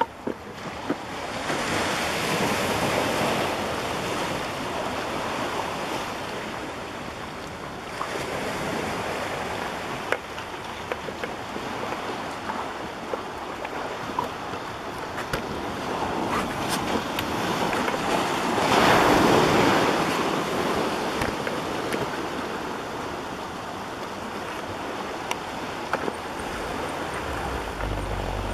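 Ocean surf at high tide washing in against the rocks and shore, a steady rush that swells loudest about two to four seconds in and again about two-thirds of the way through.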